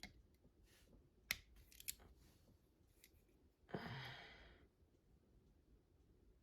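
Faint handling noise from working wires out through a ceiling fan motor housing: a few light clicks and a short rustle about four seconds in.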